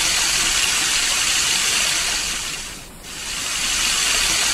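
Waterfall spraying down a rock face: a loud, steady hiss of falling water that dips briefly about three seconds in, then comes back.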